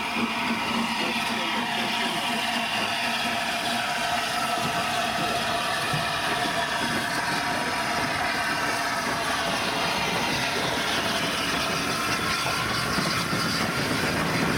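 Peppercorn A1 Pacific steam locomotive 60163 Tornado working slowly past at the head of its train, with a steady mechanical hum and some voices.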